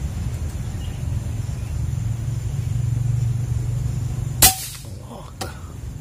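PCP air rifle firing a single shot about four and a half seconds in: one sharp crack, with a fainter click about a second later. Before the shot, a steady low rumble.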